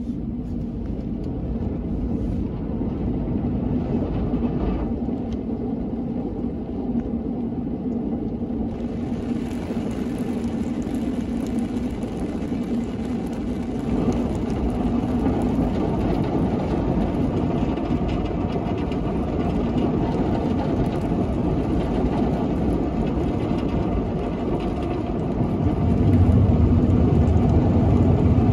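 Drive-through car wash machine working on the car, heard from inside the cabin: a steady machine hum with water spraying against the glass and body. A high hiss of spray joins about nine seconds in, and a deeper, louder rumble sets in near the end.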